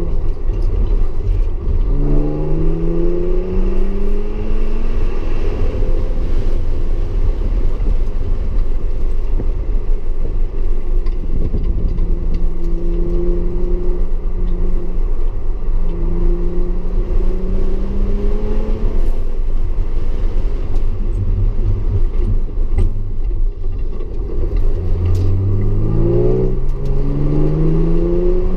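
Audi S4 engine under hard track driving: the engine note climbs under acceleration several times, holds or falls away between, and climbs quickly again near the end. A steady low drone and road noise sit underneath throughout.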